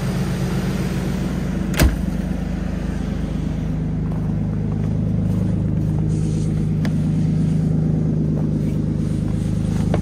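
Lexus GS300's 2JZ-GE inline-six running at a steady cold-start idle. About two seconds in comes a single sharp bang as the hood is shut, with a lighter click near the end.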